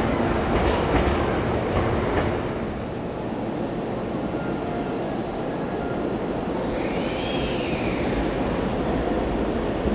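Hankyu electric train moving along the platform tracks. The wheels click over the rail joints for the first couple of seconds, then settle into a quieter rumble, with a short whine that rises and falls about seven seconds in.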